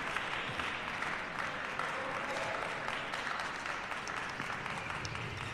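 Spectators applauding, a steady dense clapping that eases off slightly toward the end.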